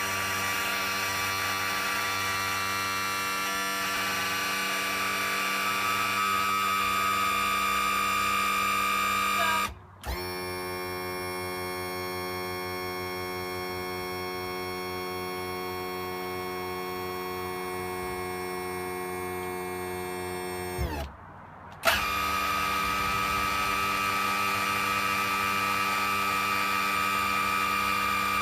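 OMC Cobra stern drive's electric tilt/trim pump motor running with a steady whine. It cuts off about ten seconds in and restarts with a different, slightly quieter tone, then cuts off again and returns to the first tone for the last several seconds, as the drive is run one way and then the other. Raising the drive sounds normal, but lowering it does not sound right.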